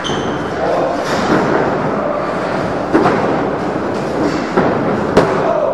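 Wrestlers hitting the ring canvas, with two sharp thuds about three and five seconds in, over a steady echoing din in a large hall.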